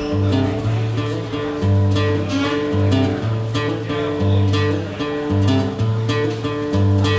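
Live acoustic guitar strumming chords as the instrumental intro to a song, with held low notes that change every second or so underneath.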